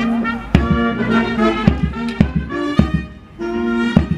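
Brass band playing, held brass chords punctuated by drum strikes about every half second to a second.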